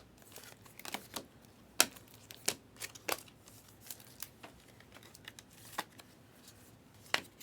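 Panini Select basketball trading cards being flipped and slid through by hand: a series of short, sharp card snaps at irregular intervals.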